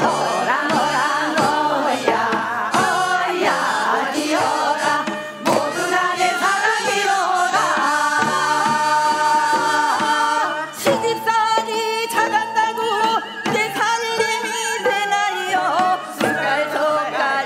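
Women singing a Gangwon-do Korean folk song (minyo) together, with percussion strokes coming more often in the second half.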